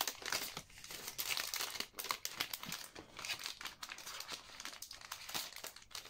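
Clear plastic packaging sleeve crinkling and crackling in irregular bursts as a paper photo frame is handled and slid back into it.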